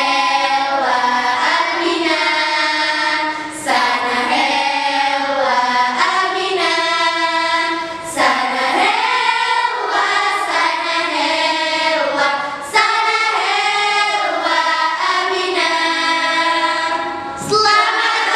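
A group of girls singing together, with no accompaniment heard, in sung phrases broken by short pauses about four times.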